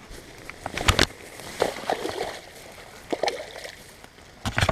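Creek water splashing and sloshing in several sharp bursts, the loudest near the end, as a caught musky is put back into the water for release.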